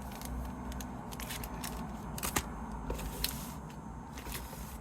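Faint handling noise from foil trading-card packs: a scattering of light clicks and taps, a couple of them in quick pairs, over a low steady hum.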